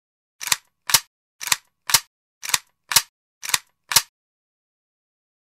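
Eight sharp percussive clacks in four pairs, a pair about every second, the second hit of each pair louder than the first: a percussion sound effect laid on the soundtrack.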